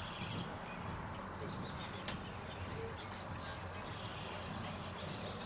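Birds chirping in short high notes over a steady outdoor background hum, with one sharp click about two seconds in.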